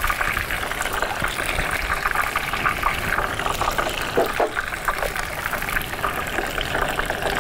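Pan of water boiling on a stovetop burner, bubbling and crackling steadily.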